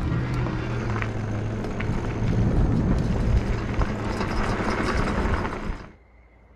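Engwe Engine Pro electric bike ridden over a dirt and gravel road: tyres crunching and wind rushing over the microphone, with a steady low hum and scattered small ticks of grit. It cuts off suddenly near the end, leaving quiet with a faint steady high tone.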